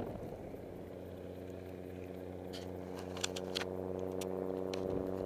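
A steady engine drone that grows slightly louder, with a few light clicks a little past the middle.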